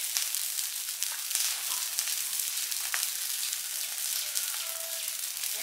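Trash fire burning with a steady hiss and dense fine crackling, with one sharper pop about three seconds in.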